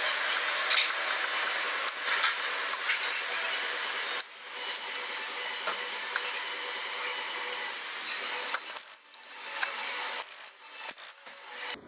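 Continuous rough rubbing and scraping noise, with a short break about four seconds in, growing patchier and fainter near the end.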